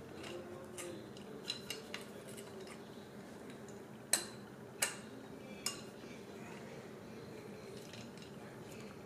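Small metal tools and caster parts clicking and clinking while being handled: a few soft clicks in the first two seconds, then three sharper clinks about a second apart between four and six seconds in.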